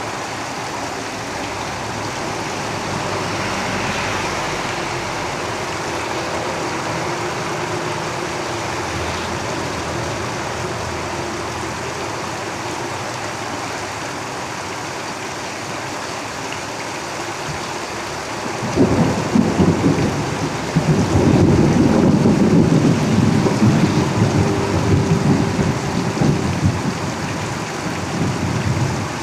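Steady heavy rain drumming on a tin roof. About two-thirds of the way in, a loud deep rumble starts suddenly and runs for about ten seconds over the rain.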